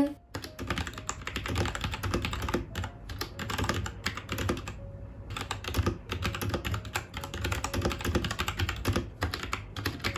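Type test on a Royal Kludge RK837 (RKG68) 65% mechanical keyboard with brown switches: rapid, continuous key clacks, with a couple of short pauses in the typing.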